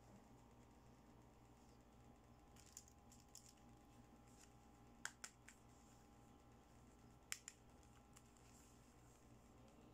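Light clicks and taps of small plastic toys being handled and set down, a toy trolley suitcase and a toy hair dryer, over a faint steady background hum. There are a handful of short sharp clicks, the sharpest ones coming in quick pairs about halfway through and again about three quarters through.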